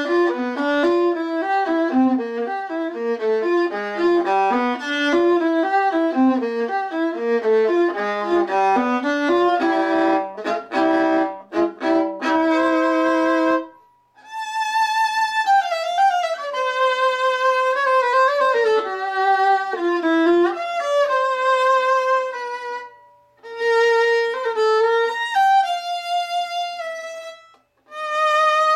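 Italian violin dated 1847 played solo with a bow. A quick run of notes on the lower strings stops briefly about halfway through; then comes a slower, higher melody with slides between notes and two short pauses near the end.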